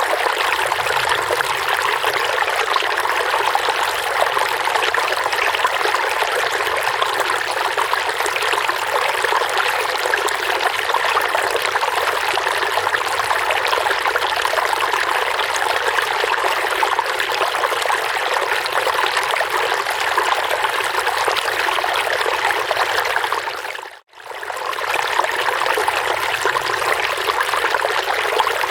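Running water trickling and splashing steadily, a babbling stream-like flow. About 24 seconds in it fades briefly to silence and comes straight back.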